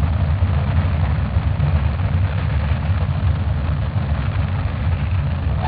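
Saturn V rocket at liftoff: a loud, steady low rumble with a rushing roar above it, dull-topped as heard on an old 8mm film's sound track.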